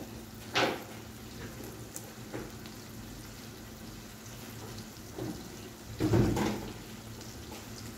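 Onion, peppers, scallion and garlic sautéing in butter in a pot: a steady low sizzle, with a few brief clatters of a utensil or pot, the loudest about six seconds in.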